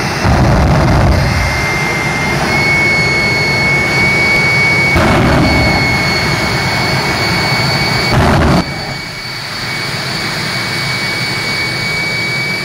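Jet engine of a jet-powered semi truck running in place: a steady high whine over a loud rush of exhaust. The rush swells at the start, again about five seconds in and again about eight seconds in, then drops back to a steadier level.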